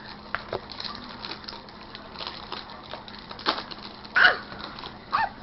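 Packaging of a trading-card box crackling and snapping as it is handled and opened, in many short crinkles. A small child's voice cries out briefly twice near the end.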